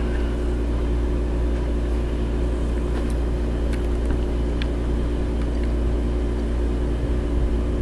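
Steady low electrical hum over a constant hiss, with a few faint clicks in the middle.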